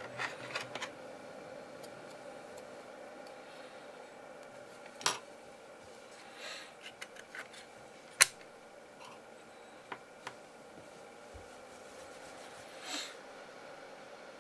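Sharp clicks and light handling noises as a laptop RAM module is fitted into the motherboard's memory slot; the loudest click, about eight seconds in, is the module snapping into the slot's retaining clips. A faint steady hum runs underneath.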